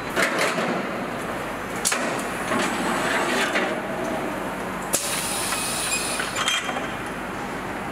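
Truck assembly-plant noise: a steady machinery background with scattered sharp metallic clanks and knocks as parts are handled on the line. A high hiss sets in about five seconds in and lasts a second and a half.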